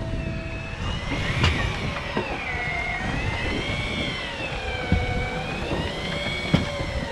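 Electric fishing reel's motor whining as it winds in line with a fish on, its pitch rising and falling slowly as the load on the bent rod changes. A few sharp knocks sound over a low rumble.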